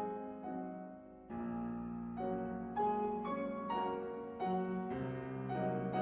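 Background piano music: gentle notes and chords over a steady lower part.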